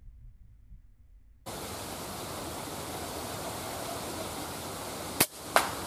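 A Dhemit Anu laminated air rifle fires a slug with one sharp crack, followed about a third of a second later by a second crack with a brief ring, the slug striking at the target. A steady hiss of wind noise starts abruptly about a second and a half in.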